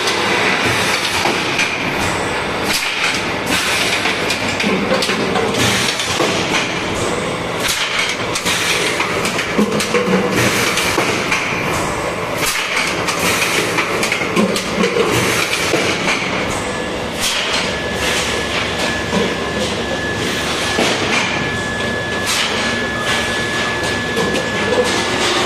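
PET bottle blow moulding machine running: a loud, continuous clatter of machinery with frequent sharp clacks. A thin steady whine joins in about two-thirds of the way through.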